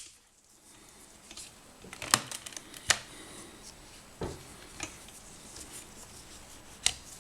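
Scattered clicks and knocks of a UNI-T UT61E multimeter's plastic case being handled and opened, a few sharp ticks some seconds apart.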